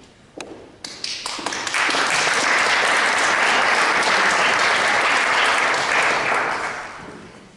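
Audience applauding: a few scattered claps at first, swelling into steady applause before two seconds in, then dying away near the end.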